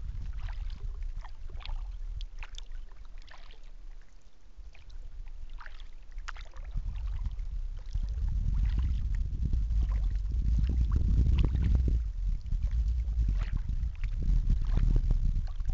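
Wind rumbling on the microphone of a camera riding on a kayak, stronger in the second half, with small scattered water splashes and drips as the kayak moves along the river.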